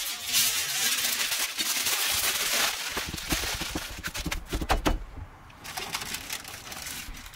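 Aluminium foil crinkling and crackling as it is folded and crimped by hand into a packet, with a quieter moment about two-thirds through.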